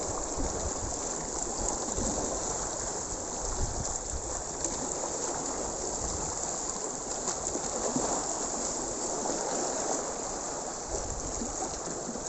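Seawater washing against shore rocks at high tide: a steady rushing wash with irregular low rumbles.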